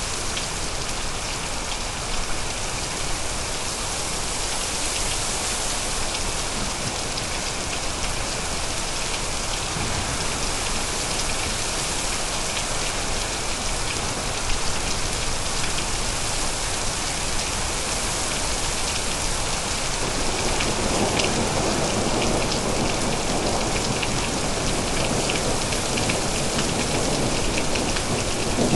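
Steady rain falling in a continuous hiss with fine patter of drops, getting fuller and slightly louder about twenty seconds in.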